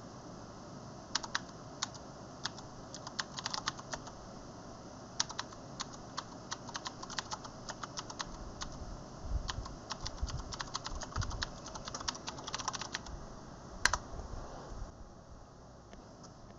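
Typing on a computer keyboard: irregular runs of quick key clicks, with one louder keystroke near the end and little after it.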